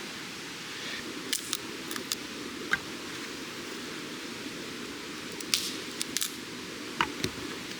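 Sharp, irregular clicks and pops, about ten of them, over a steady hiss.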